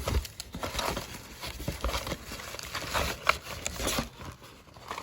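Paper and plastic food packaging crinkling and rustling in irregular bursts as items are handled and pulled out of a Happy Meal box.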